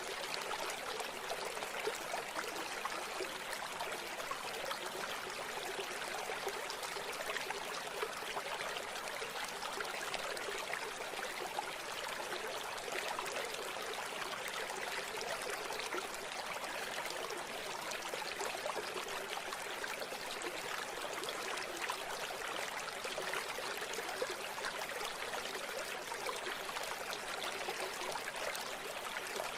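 A shallow river or stream running steadily over stones, a continuous babbling and trickling of water.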